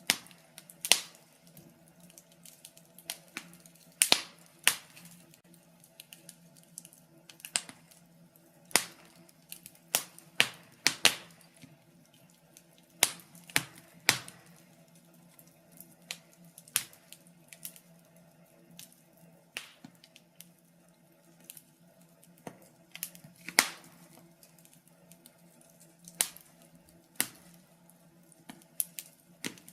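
Wood fire crackling: irregular sharp pops and snaps, one or two a second, some louder than others, over a faint steady hum.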